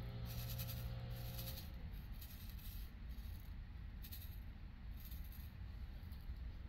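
Faint crinkling and rustling of a small plastic bag of diamond painting drills being handled, over a steady low motor drone that stops about a second and a half in.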